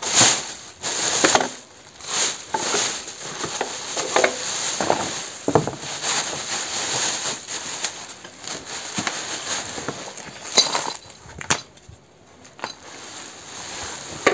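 Plastic wrapping and foam packing crinkling and rustling in irregular bursts as a new engine is unwrapped and lifted out of its cardboard box; the rustling dies down near the end.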